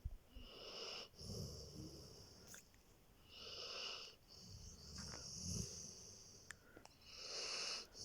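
Saint Bernard snoring in its sleep: three airy, wheezing breaths about three seconds apart, with low rumbling snores between them.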